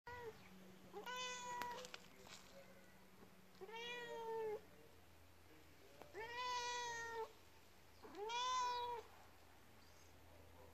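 Tabby-and-white domestic cat meowing four times, each meow about a second long and gently rising then falling in pitch, a couple of seconds apart.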